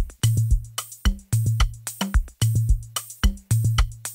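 Programmed drum loop playing back: sharp kick, snare and hi-hat hits in a steady repeating pattern, with a long low bass note recurring about once a second. The drum bus is being blended with a heavily compressed parallel copy to make the drums hit harder.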